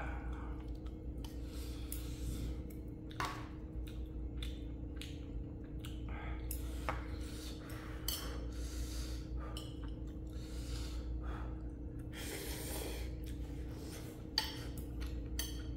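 Someone eating ramyeon noodles: irregular clicks and clinks of utensils against the bowl, with short noisy slurps and breaths between, over a steady low hum.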